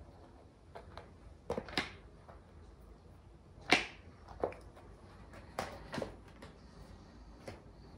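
A cat playing with a loose carpet mat on a tile floor: a string of short, sudden scrapes and slaps as its paws pull at the mat and lift it, the loudest a little before halfway through.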